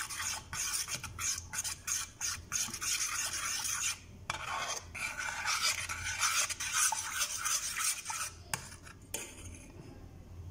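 Metal spoon stirring a hot coffee and cacao mixture in a stainless steel saucepan, scraping and clinking against the pan in quick repeated strokes. The stirring thins out near the end.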